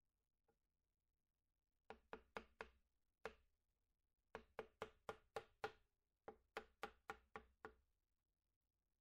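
Runs of sharp, pitched knocks, like wood being struck: quick groups of four to seven strikes with short pauses between them, stopping about a second before the end.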